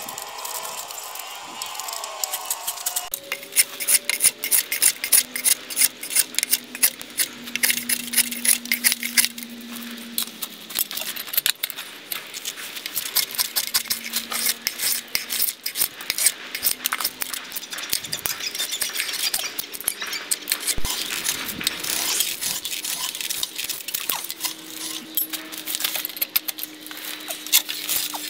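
Hand tools rapidly scraping and rubbing on metal, a dense run of sharp scratches and ticks.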